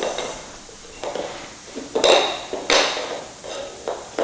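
Wooden toy train track pieces knocking and clacking against each other and the hardwood floor as they are handled and fitted together: a string of irregular knocks, the loudest two about halfway through.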